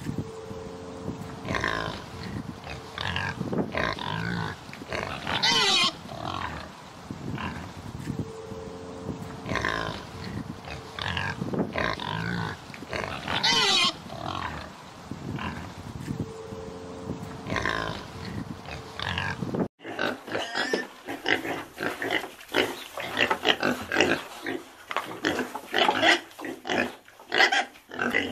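Several pigs grunting as they root in the soil, with a couple of short, high squeals. About two-thirds of the way through the sound cuts to a faster run of quick grunts and snuffles.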